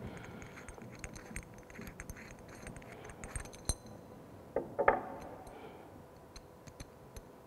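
Light clicks and clinks of a pipe union being handled and screwed together by hand on a water pump's discharge pipe, with a short, louder rattle of knocks about five seconds in.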